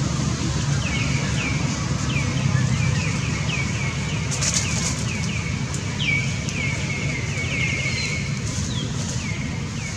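A small bird chirping over and over, each chirp a quick falling note, two or three a second, over a steady low rumble.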